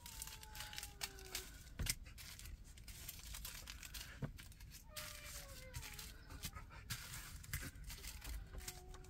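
Small plastic ziplock bags of diamond painting drills crinkling and clicking as they are handled and set down, with a dog whining faintly three times in falling tones.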